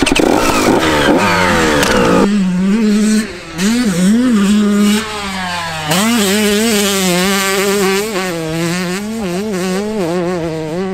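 Motocross dirt bike engines revving. A close, busy rise in revs fills the first couple of seconds, then after an abrupt change a single engine note rises and falls again and again with the throttle.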